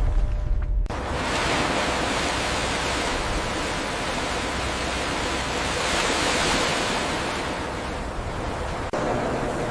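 A deep low rumble that cuts off about a second in, then a steady rushing like ocean surf or churning water, swelling a little past the middle.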